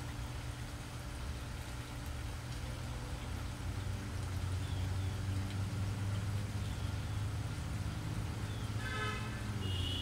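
Steady low mechanical hum that grows a little louder about halfway through, with a few faint high chirps and a short chirping call near the end.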